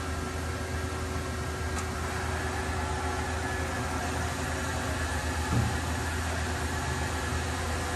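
Steady machine-shop hum and hiss, with a low drone and a few faint steady tones, and a single knock about five and a half seconds in.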